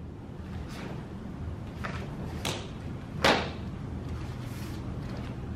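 Sharp snaps and thuds from a taekwondo form being performed barefoot: the uniform cracking on fast blocks and strikes and feet landing on foam mats, with the two loudest about two and a half and three and a quarter seconds in.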